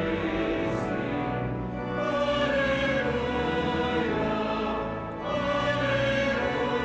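Choral music laid over the pictures: a choir singing long held notes in harmony, with a short breath about five seconds in before the next phrase.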